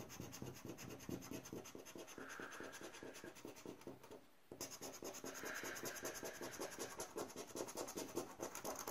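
A paper Rubbelstar lottery scratch card having its scratch-off coating scraped away with a flat scraper: faint, rapid back-and-forth scratching strokes, with a short break about four seconds in.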